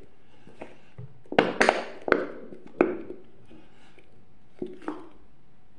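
Handling noise: about seven sharp taps and knocks as hands work a bottle right up against the phone, the loudest cluster between about one and a half and three seconds in.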